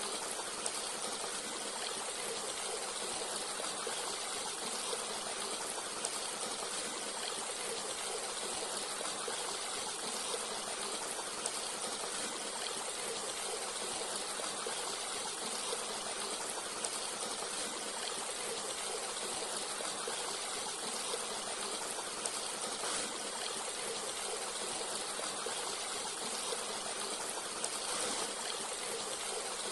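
Forest stream flowing: a steady rush of running water with trickling, unchanging throughout.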